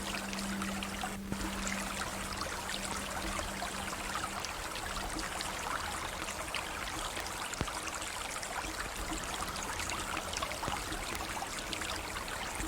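River water flowing: a steady rushing, trickling stream. A low held note fades out during the first few seconds.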